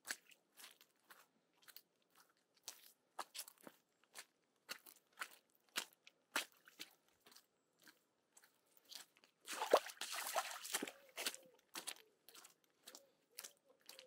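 Walking footsteps crunching on a rough path, about two steps a second. About ten seconds in there is a louder scraping rustle lasting about a second.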